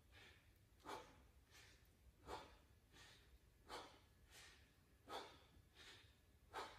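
A man breathing hard and rhythmically from the exertion of a set of dips. The breaths are faint and even, alternating stronger and weaker, with a full in-and-out about every one and a half seconds.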